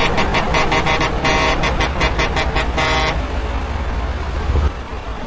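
Custom truck horn sounded in a rapid run of short toots, about five a second, with a couple of longer blasts, stopping about three seconds in. A heavy truck's engine rumbles low underneath and drops off near the end.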